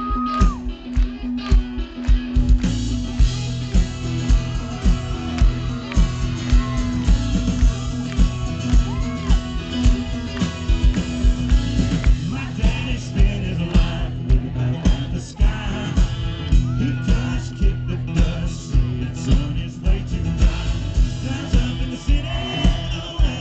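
Live country band playing the instrumental lead-in to a song, with a steady kick-drum beat about twice a second under bass and guitar.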